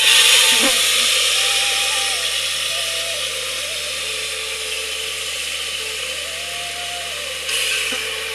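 A loud, steady rushing hiss that starts abruptly, eases slightly, and swells briefly near the end, with a soft background-music melody underneath.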